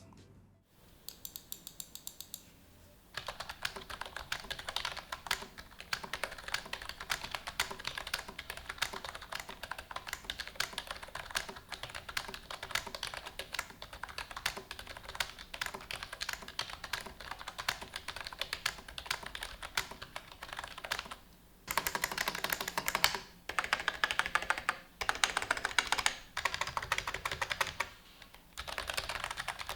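Typing on an Aula F2028 full-size membrane keyboard: a steady stream of fast key presses. After a short pause about two-thirds of the way through, it comes in louder flurries broken by brief pauses.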